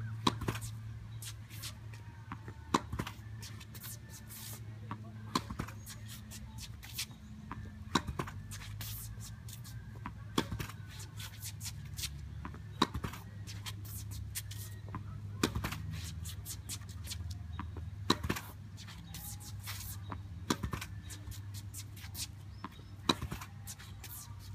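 A tennis ball is struck backhand with a racket against a portable tennis backboard and comes back off it. A loud hit lands about every two and a half seconds, each followed by lighter taps of the ball rebounding and bouncing, over a steady low hum.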